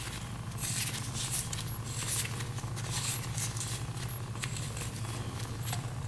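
Old gearbox oil from a 1983 Honda CR250 trickling and dripping in a thin stream into a plastic drain pan, with irregular small crackly patters over a steady low hum.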